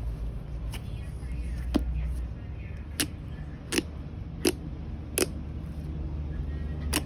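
Slime being squeezed and poked by hand, giving a run of sharp clicky pops roughly every second over a steady low rumble.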